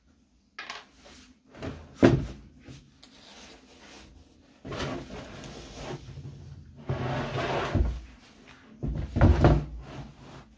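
A wooden-framed epoxy panel on a board being set down and pushed about on a wooden workbench: a sharp wooden knock about two seconds in, then three longer bursts of wood scraping and sliding on wood.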